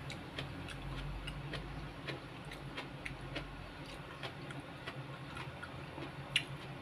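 Close-up chewing of a mouthful of rice and salted fish: many small, irregular wet clicks from the mouth, with one louder click about six seconds in, over a faint low hum.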